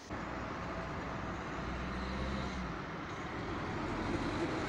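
Steady outdoor city ambience: a low rumble of distant road traffic, with no distinct events.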